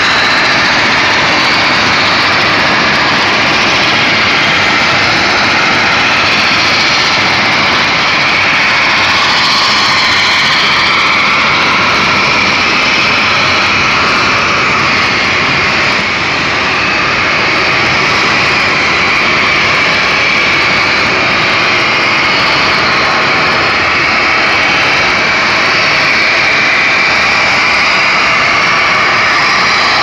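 Steam venting under pressure from an industrial plant: a loud, steady rushing hiss whose pitch wavers slowly.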